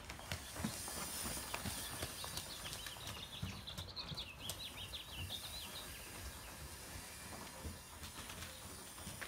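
Muffled hoofbeats of a ridden horse moving over arena sand, coming as soft, uneven thuds. A short run of quick, high chirps sounds through the middle.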